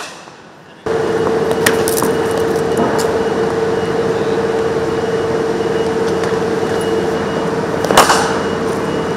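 A cricket bat striking a ball: one loud sharp crack about eight seconds in, with a few fainter knocks earlier. Under it, a steady hum and background noise that begin abruptly about a second in.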